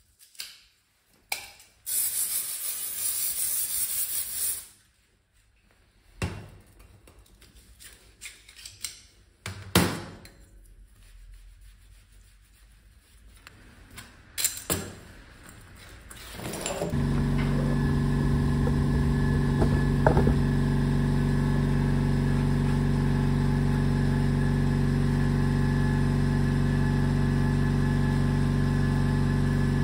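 Workshop clicks and knocks with a two-second hiss of air near the start, then about 17 seconds in a motor starts up and runs with a steady, even hum.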